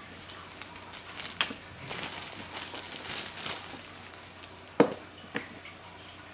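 Crinkly paper packaging rustling and crackling as cats move and paw in it, with a sharp click at the start and two sharp ticks near the end.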